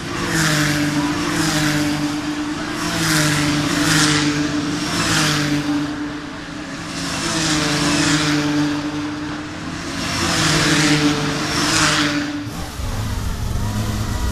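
Racing cars passing one after another at speed, each going by as a loud swell of engine and exhaust noise over a steady engine drone from the circuit. Near the end it changes to a lower engine rumble.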